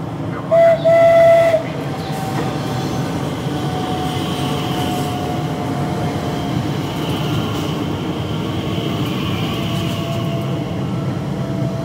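Elizabeth line Class 345 electric train giving two short horn blasts, the second longer. It then runs past the platform with a steady low rumble and a motor whine that slowly falls in pitch as the train slows.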